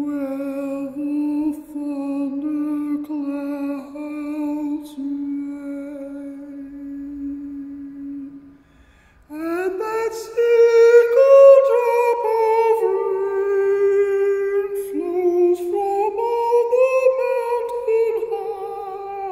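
A man's voice singing wordless notes: a long, low, slightly wavering held tone for about eight seconds, a short break for breath, then higher notes that slide and step up and down.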